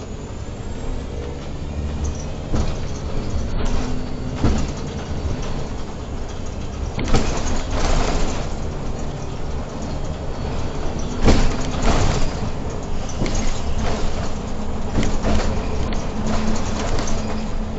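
Irisbus Crossway LE 12M bus driving, its engine and road noise heard from inside the driver's cab, with several sharp knocks and rattles.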